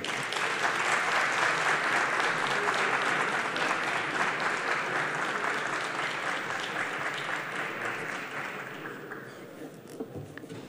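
Members of parliament applauding, a dense steady clapping that tapers off over the last few seconds.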